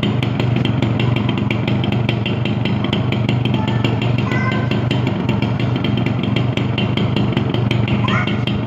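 Yamaha YB 100's single-cylinder two-stroke engine idling steadily at an even speed.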